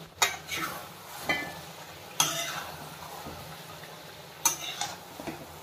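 Spatula scraping and knocking against a non-stick wok as thick chicken-feet curry is stirred, in separate strokes about a second apart with a quick cluster of scrapes about four and a half seconds in.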